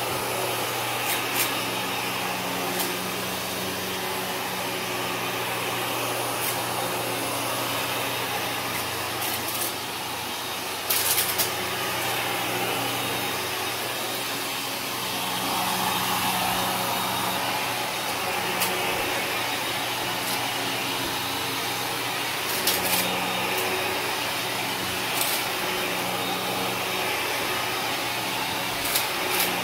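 Kenmore upright vacuum cleaner running over carpet, its motor droning steadily and the suction noise swelling and easing as it is pushed back and forth. Sharp crunches and crackles come every few seconds, with a burst about a third of the way in, as grit and debris from the unswept carpet are sucked up.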